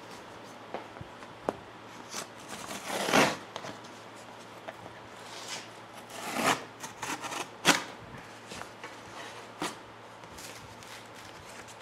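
A sheet of cardboard being handled and scored with a utility knife along a metal straightedge: rustling and scraping, with two louder scrapes about three and six and a half seconds in and a sharp click near eight seconds.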